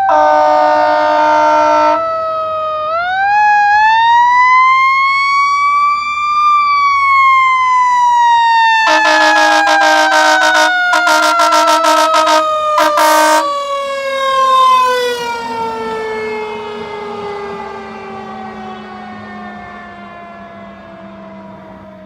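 Fire engine's Federal Q mechanical siren winding up to a peak and then coasting slowly down in a long falling wail that fades away. Air horn blasts sound over it, one long blast at the start and three blasts in quick succession about halfway through.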